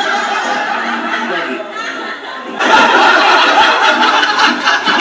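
People laughing and snickering, mixed with some speech. It gets suddenly louder about two and a half seconds in.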